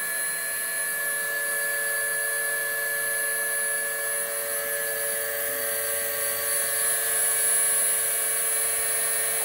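Dremel rotary tool, serving as the spindle of a home-built CNC mill, running at a steady high speed: an even, unchanging motor whine.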